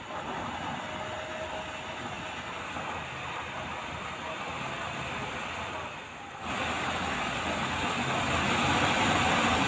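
Homemade used-oil stove burning on forced air: a steady rushing noise of the blower-fed flame, which jumps suddenly louder about six and a half seconds in.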